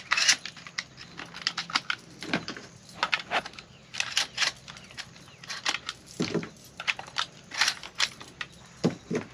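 12-gauge shotgun shells being pushed one at a time into the Kel-Tec KSG's magazine tube, giving a run of irregular clicks and clacks of shell on the loading port and shell stop.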